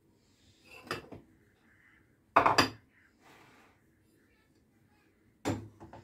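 Kitchen utensils and dishes clinking and clattering, in three short bursts: about a second in, a louder one around two and a half seconds, and another near the end.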